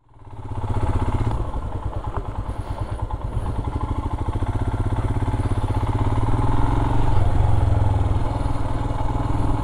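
Royal Enfield Himalayan's 411 cc single-cylinder engine running as the motorcycle rides slowly, a steady low pulsing beat heard from the rider's position. It fades in over the first second.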